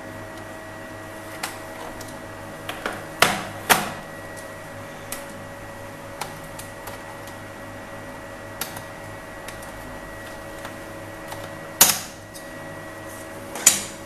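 Scattered sharp plastic clicks and knocks from a small screwdriver and hands working at a laptop's plastic base while freeing its DVD drive. The loudest knocks come a little past three seconds, just under four seconds, at about twelve seconds and near the end, with lighter ticks between, over a faint steady hum.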